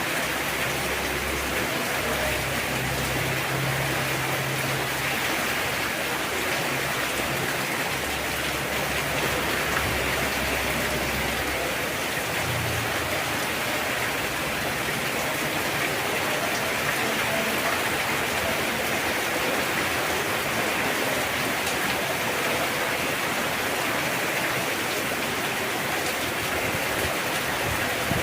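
Heavy rain falling steadily, a dense even hiss, with a low rumble underneath during roughly the first dozen seconds.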